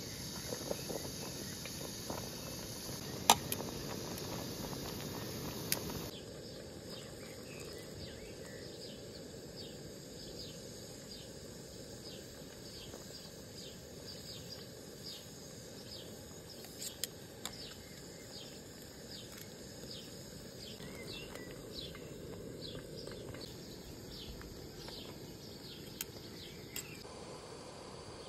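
Outdoor ambience of insects chirping in a steady repeating rhythm of short falling chirps, about two a second, with one sharp click about three seconds in.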